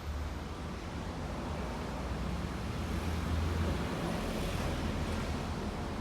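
Motor vehicle and road traffic noise: a steady low rumble with a noisy wash above it, swelling slightly about three seconds in.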